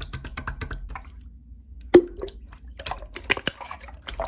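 Slime being squished and pressed by hand: a run of wet, sticky clicks and pops, with one sharp, louder pop about two seconds in.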